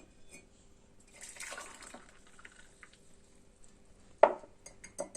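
Warm herbal infusion poured through a kitchen strainer into a glass: a brief trickle of liquid about a second in. A sharp clink about four seconds in and a few lighter taps near the end.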